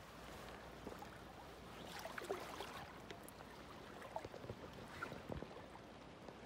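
Faint, steady rush of river water flowing past the bank, with a few small scattered clicks and knocks.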